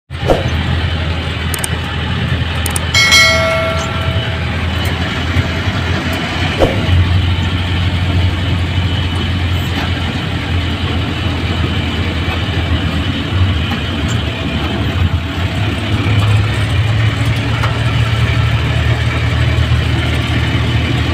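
Passenger jeepney's diesel engine running under way, with road noise, heard from the driver's seat in the open cab. The engine note rises a little about sixteen seconds in, and a short high pitched tone sounds briefly about three seconds in.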